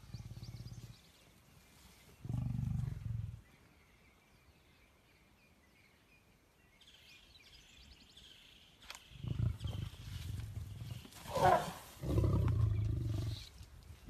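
Lions growling over a zebra kill in deep, pulsing bouts: one at the start, one about two seconds in, and a longer run from about nine seconds, broken by a brief higher cry about eleven and a half seconds in.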